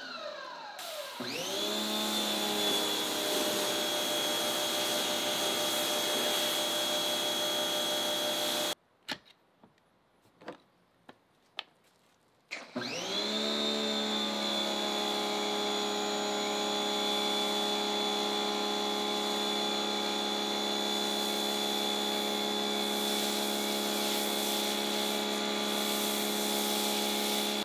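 Pressure washer running as it sprays through a foam cannon. It comes up with a rising whine about a second in and runs steadily. About nine seconds in it cuts out, leaving a few faint clicks, then it starts again with another rising whine and runs on.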